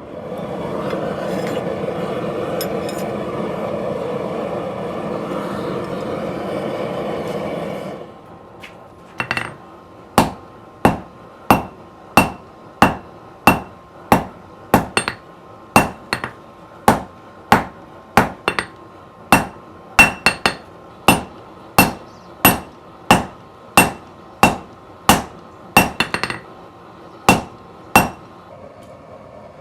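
Hand hammer striking hot wrought iron on an anvil at a steady pace of about one blow a second, each blow with a bright ring, drawing out and thinning an axe blade. For the first eight seconds a steady roaring noise plays instead, then cuts off before the hammering starts.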